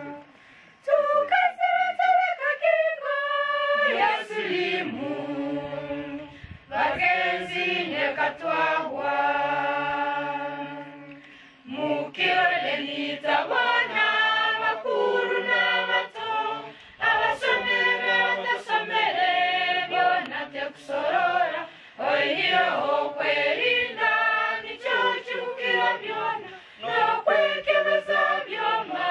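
A group of young people singing together in chorus without instruments, in phrases of a few seconds with short breaks between them.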